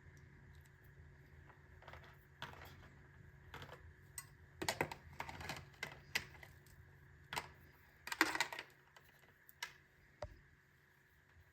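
Handling noise: irregular clicks, taps and short rustling scrapes, busiest and loudest in the middle, with a dull thud near the end.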